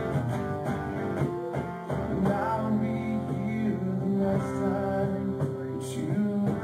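Live acoustic rock band playing: strummed acoustic guitar chords, with held melody notes over them from about two seconds in.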